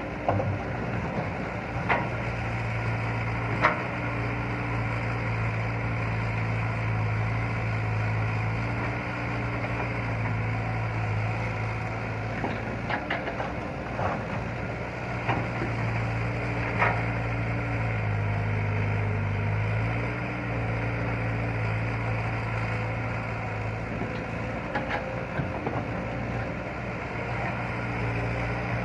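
Excavator's diesel engine running steadily as the machine digs, its note dipping and rising a little with the load. Sharp knocks are heard now and then.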